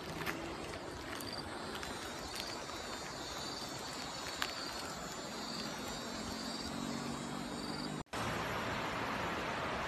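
Forest ambience: a steady rushing noise with faint, high insect chirps repeating over it. About eight seconds in the sound drops out for an instant and comes back as a louder, brighter rush.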